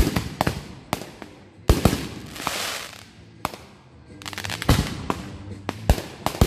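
Aerial fireworks shells bursting in quick succession: a rapid string of sharp bangs, with two stretches of crackling hiss in the middle.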